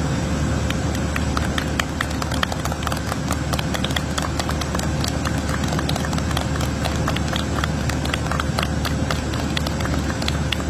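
Many sharp clicks in quick, irregular succession over a steady low mechanical hum.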